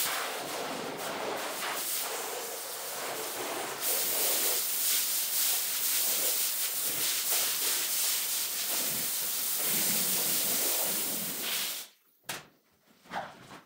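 High-pressure water jet from a pressure-washer lance spraying onto a soaked rug and wet floor: a steady hiss that cuts off abruptly about twelve seconds in, followed by a few faint knocks.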